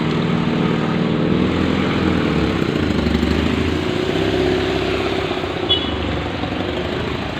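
A motor vehicle's engine running close by, steady with its pitch drifting gently up and down.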